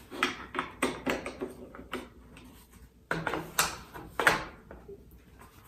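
Clicks and scrapes of a Remington 700's detachable magazine being handled with an empty .223 case and worked up into the rifle's magazine well, in two bursts: a run of light clicks at the start and a louder cluster a little after three seconds in.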